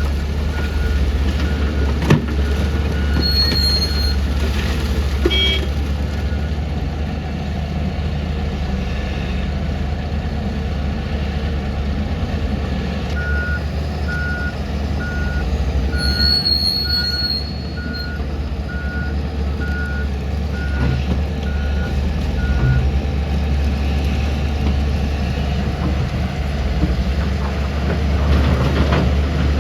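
Diesel engine of heavy construction machinery running steadily with a low rumble. A backup alarm beeps about one and a half times a second, for the first few seconds and again for about ten seconds midway.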